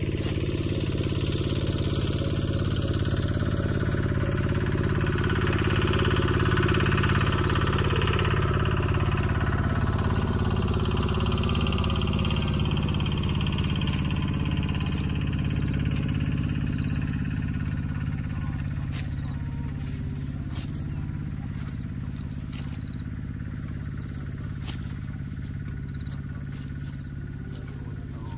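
Motorcycle engine running as it passes, growing louder and then fading away, over a steady low engine hum.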